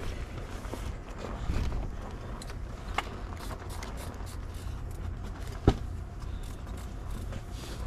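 Clothing rustling and being handled as snow pants are pulled up and a hoodie is unfolded, over a low steady rumble. A light click about three seconds in and a sharp, louder knock about three-quarters of the way through.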